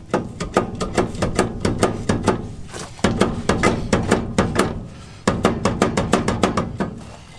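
Rapid hammer blows on the steel wheel hub of a 6x6 5-ton military truck, about four a second, each with a short metallic ring, in three runs. The hub is stuck and is being knocked loose.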